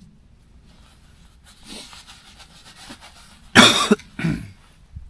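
A man coughing twice, a loud cough about three and a half seconds in followed straight away by a shorter, softer one.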